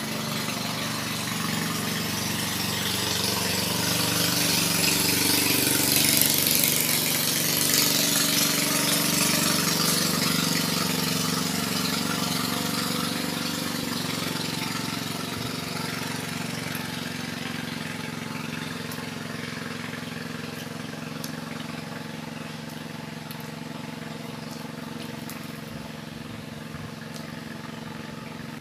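A motor engine running steadily, growing louder over the first six or so seconds and then slowly fading away.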